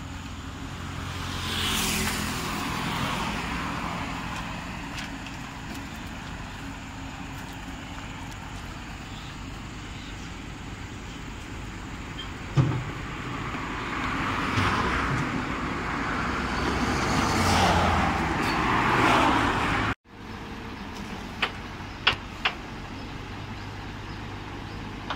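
Road traffic: vehicles passing by, twice swelling up and fading away, over a steady low engine hum. A single sharp knock comes about midway, and a few sharp clicks near the end.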